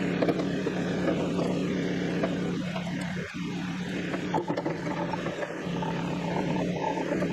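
Bobcat CT2040 compact tractor's three-cylinder diesel engine idling steadily, with a few sharp metal clicks as the box blade's ripper shanks and their pins are handled.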